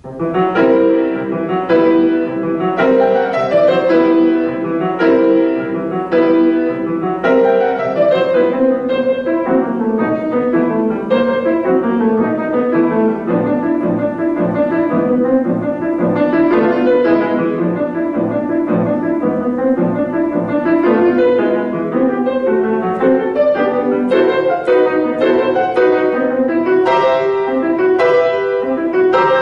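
Solo C. Bechstein grand piano being played, starting abruptly and going on in a steady, dense stream of notes and chords.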